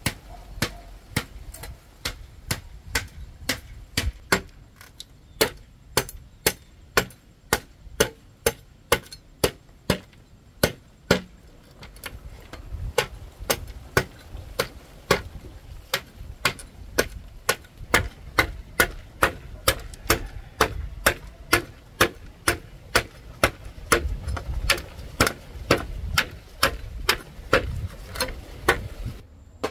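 Sharp knocks repeated at an even pace, about two a second, over a low rumble, like steady chopping or hammering.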